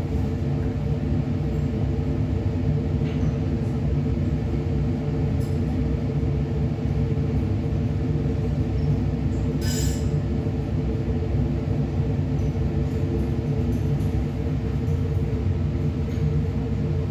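Steady low hum and rumble of a laboratory fume hood's extraction fan running. A brief glassy clink about ten seconds in.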